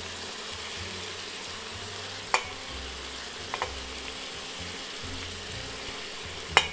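Steady sizzling of beef bones and seasoning cooking in a pressure cooker pot as dry red lentils are poured in. A few sharp clicks cut through it, one about two seconds in, a double one a second later, and the loudest near the end.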